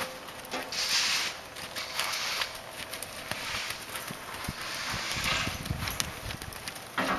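Hoofbeats of a buckskin Quarter Horse gelding moving at a lope through soft arena sand.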